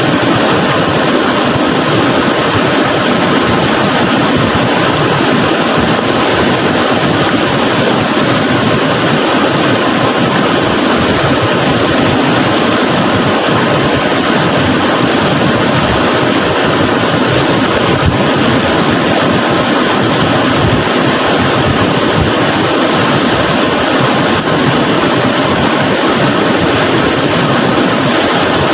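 Flooded river, fast-moving water rushing with a loud, steady noise.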